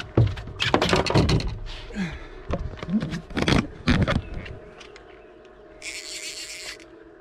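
Handling noise in a fishing boat while fighting hooked fish on two rods: knocks, clicks and scrapes of rods, reel and gear, with wordless exclamations, for the first four seconds or so. Then it goes quieter over a faint steady hum, with a short hiss about six seconds in.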